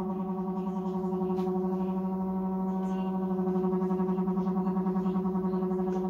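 Samsung Diamond washing machine humming like a transformer during the wash, a steady drone with a fast regular wobble. The uploader puts this humming down to a failed motor and water-level sensor, and the machine will not spin.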